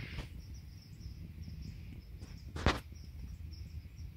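Low handling and wind rumble on a handheld camera's microphone, with one sharp click a little past halfway. Behind it, faint high chirps repeat a few times a second.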